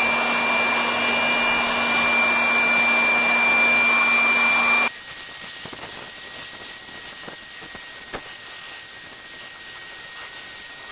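Handheld electric air blower running with a steady high whine, blowing dust out of a car's pleated cabin AC filter. About five seconds in the sound drops abruptly to a quieter steady hiss.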